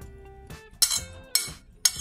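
Cutlery clinking against a plate three times, about half a second apart, starting about halfway through, over soft background music.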